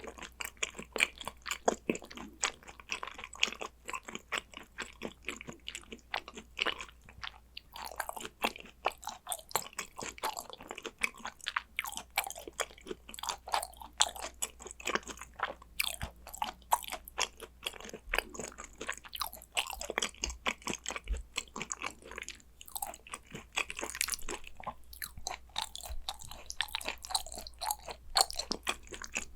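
Close-miked chewing of spicy gochujang hanwoo yukhoe (raw Korean beef tartare). It is a continuous run of quick wet mouth clicks and smacks with no pause.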